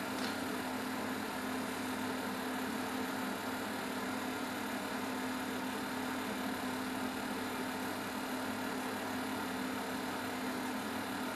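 Steady electrical hum with an even hiss from an automated cooking machine's induction heater running, heating its pot of water at about 101 °C, just short of the boil.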